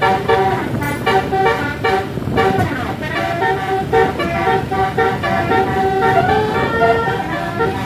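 A bus's 36-note Basuri telolet horn playing a quick melody: short horn notes change pitch several times a second, over a low rumble of engine and road noise.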